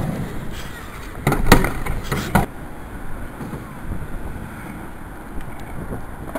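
Skateboard knocking on asphalt: a sharp clack at the start and four more between about one and two and a half seconds in, then a steady rushing noise.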